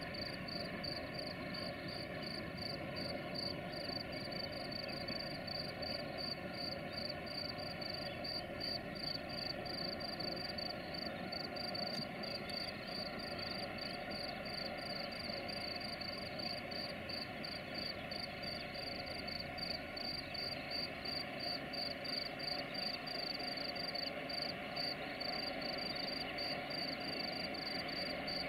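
Crickets chirping steadily, a few chirps a second, over a low, steady rumble from distant diesel locomotives hauling a loaded tank-car freight train up a steep grade.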